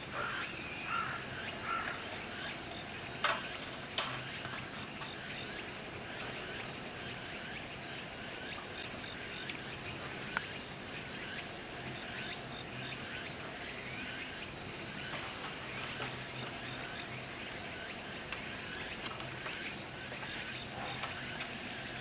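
Outdoor ambience: a steady high-pitched insect drone with scattered bird calls, most frequent in the first couple of seconds. A few sharp clicks come about three and four seconds in and once around ten seconds.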